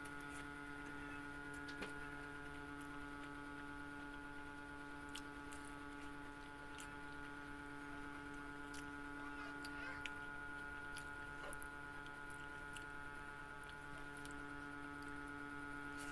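Steady electrical mains hum, with soft, scattered clicks of chewing as rice and tofu are eaten by hand.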